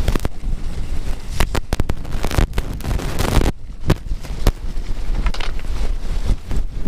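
Wind buffeting the microphone of a handlebar-mounted camera as a mountain bike descends a rough grass-and-stone track, its tyres rumbling and the bike clattering and rattling over bumps in irregular knocks, with a louder rush of tyre noise about three seconds in.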